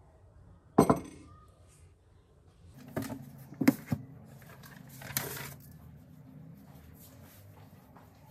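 A ceramic coffee mug with a metal spoon in it set down on a wooden desk with a sharp knock and clink about a second in. Then books are laid on the desk with two knocks around three to four seconds in, and paper rustles briefly about five seconds in.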